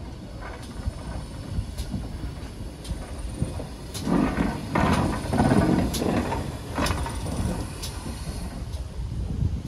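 Train running on the rails: a steady low rumble with sharp clicks about once a second, growing louder for a couple of seconds near the middle.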